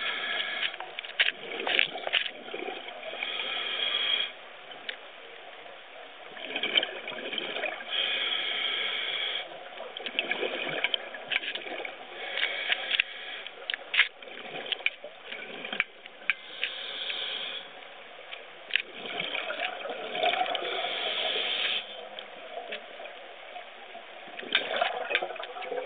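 Scuba diver breathing through a regulator underwater: each inhalation is a hissing draw lasting one to three seconds and comes every four to six seconds, and the exhalations between them release bursts of bubbling and crackling.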